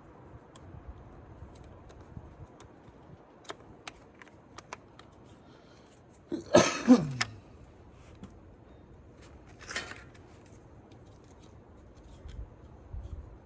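Light clicks and taps of metal tools and winch parts being handled, with one louder harsh, scraping sound about six and a half seconds in whose low part drops in pitch, and a shorter rustle near ten seconds.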